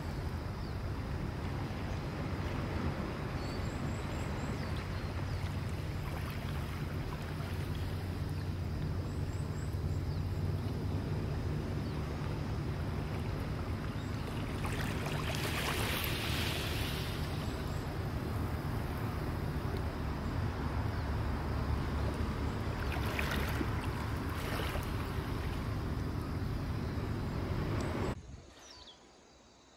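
Small waves lapping and washing over a pebble beach, with wind rumbling on the microphone; a wave hisses up the shingle about halfway through and again a few seconds later. The sound drops away suddenly near the end.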